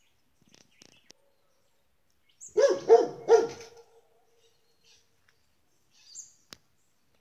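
A dog barking three times in quick succession, about two and a half seconds in.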